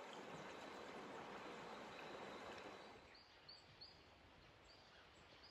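Faint, steady rush of a shallow river flowing over stones, which drops to near silence about three seconds in; a few faint, short, high-pitched blips follow.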